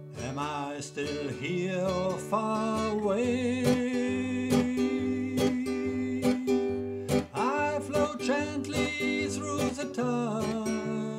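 Acoustic guitar music: plucked chords with a wavering, gliding melody line over them.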